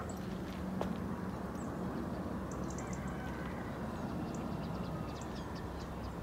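Outdoor ambience: a steady low rumble, with a low hum that fades out about a second in, and small birds chirping now and then in short high notes.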